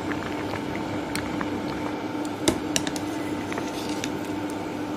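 Pot of rice boiling in spiced water, bubbling steadily over a steady low hum, with a few sharp clicks, the loudest about two and a half seconds in.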